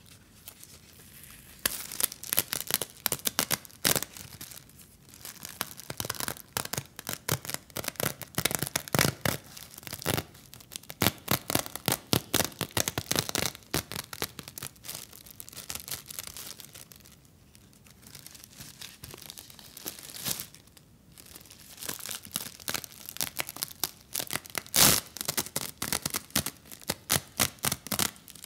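Thin plastic wrapper of a winged night-time sanitary pad crackling and tearing as it is peeled open and the pad is unfolded. The crackles are dense and irregular, with two short quieter pauses a little past the middle.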